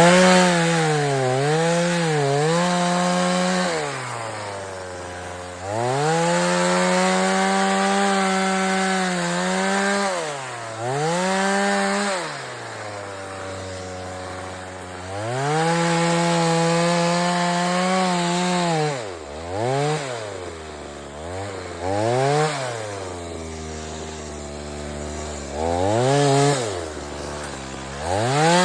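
Two-stroke chainsaw cutting wood, revved to full speed for a few seconds at a time and dropping back to idle between cuts, with dips in pitch as the chain bites. In the second half there are several short blips of the throttle.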